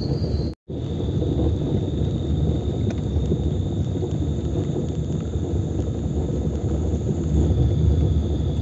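Steady high-pitched chirring of crickets over a loud low rumble, broken by a brief dropout about half a second in.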